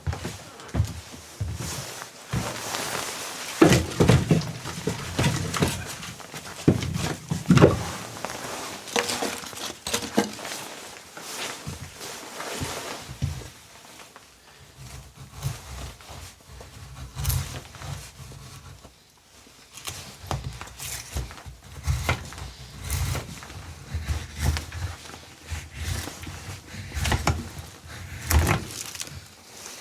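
Irregular knocks, thuds and scuffs, loudest in two clusters a few seconds in and again near the end.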